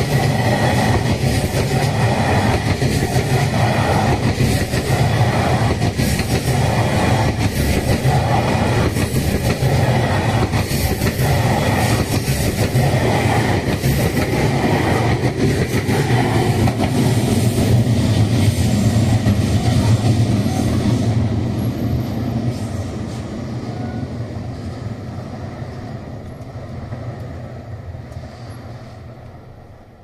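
M250 series Super Rail Cargo freight electric multiple unit passing at close range, its wheels rumbling on the rails with a regular pulsing beat. After the last car goes by, about two-thirds of the way in, the sound fades steadily away.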